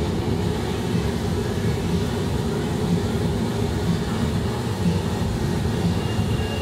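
Live noise music through a PA: a loud, steady low rumbling drone, with a faint pulse about once a second.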